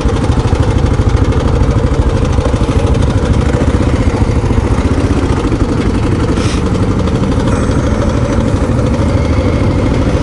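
Dual-sport motorcycle engine running at low speed, a steady rapid low throb, with one short click about six and a half seconds in.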